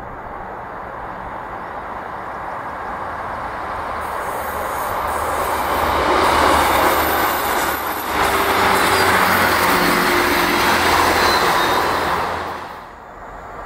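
East Midlands Railway diesel multiple unit approaching and passing at line speed: the rolling noise of wheels on track builds steadily, is loudest for several seconds as the coaches go by, and falls away quickly near the end as the train recedes.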